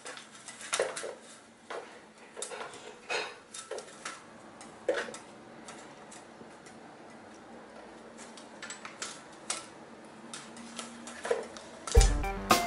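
Horizontal window blind slats clicking and rattling in irregular bursts as a kitten pushes and paws its way between them. Music with drums comes in near the end.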